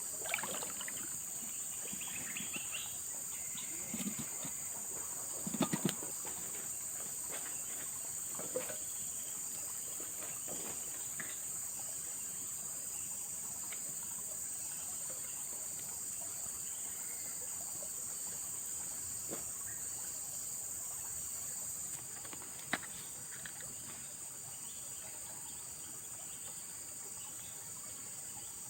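Steady, high-pitched droning chorus of forest insects, with a few light knocks and clicks scattered through it, the biggest cluster about six seconds in.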